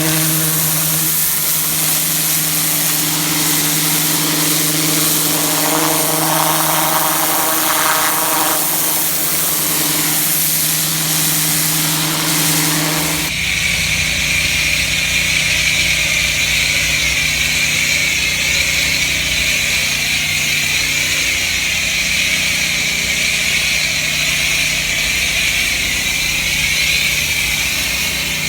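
Gas-engine pressure washer running steadily while its high-pressure water spray hisses against concrete. The sound changes abruptly about halfway through to a deeper rumble with a steady high whine.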